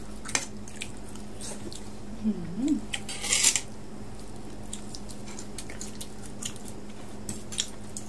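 Close-up eating sounds: chewing pickled bamboo shoot, a short hummed "mm" a little over two seconds in, a brief crunchy rustle about three seconds in, and light clicks of cutlery on a plate, more of them near the end. A steady low hum runs underneath.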